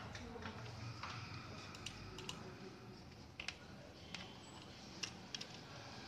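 Faint, irregular clicks at a desktop computer, about ten of them spread unevenly through the few seconds, some in quick pairs.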